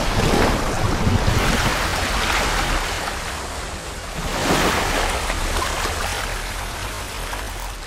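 Rushing, splashing water sound effect that swells at the start and again about four and a half seconds in, over a steady low rumble.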